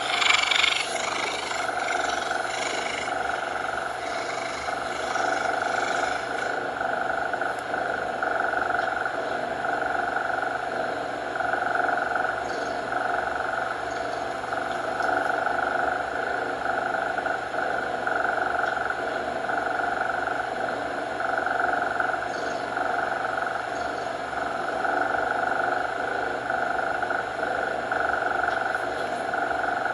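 Cat purring steadily and closely, swelling and easing in a slow rhythm about every second and a half with its breaths. A brighter hiss fades out in the first few seconds.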